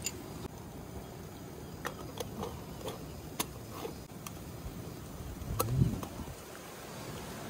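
Small clicks and light metallic knocks of moka pot parts and coffee gear being handled and set down, with one louder knock near the end, over a steady low background noise.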